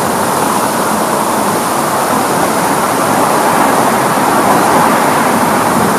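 Large water fountain's jets splashing into the basin: a steady, even rushing noise.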